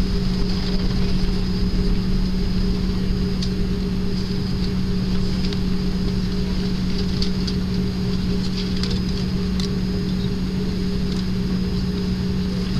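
Steady cabin noise inside an Airbus widebody airliner taxiing: a low rumble under a steady hum and a thin high whine from the jet engines at taxi power and the cabin air system, with a few faint ticks and rattles.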